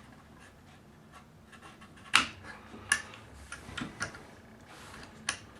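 Sharp clicks and light knocks of rifle parts being handled and fitted together while reassembling a Mossberg Tactical 22. The loudest click comes about two seconds in, with a few more scattered after it.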